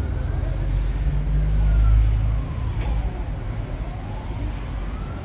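Low, steady rumble of a sightseeing boat's engine, swelling for a second or so about a second in, with a faint tone slowly sliding up and down above it.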